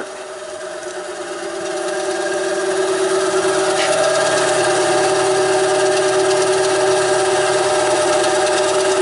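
WEN BA3959 9-inch benchtop band saw running free with no workpiece, its 2.8-amp belt-driven motor slow to start: the hum grows louder over the first two or three seconds, then holds steady. The owner wonders whether the blade tension is still too tight.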